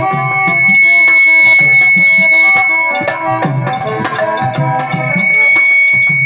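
Music with a rhythmic drum beat, rattling shaker-like percussion and a long held high note that drops away about two and a half seconds in and returns near the end.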